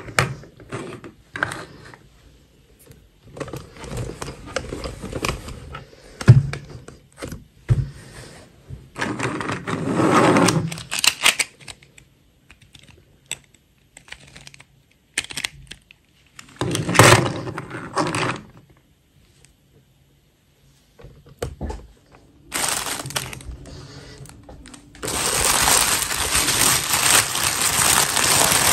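Small hard-plastic doll figures clicking and knocking against each other and the tabletop as they are handled, with a few short rustles. Near the end comes loud, continuous crinkling of a thin clear plastic bag squeezed between the hands.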